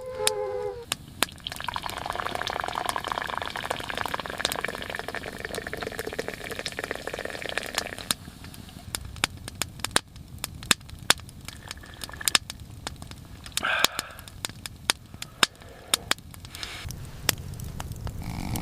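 Wood fire crackling, with irregular sharp pops throughout and a steady hiss over the first half. A puppy's short whine trails off just at the start.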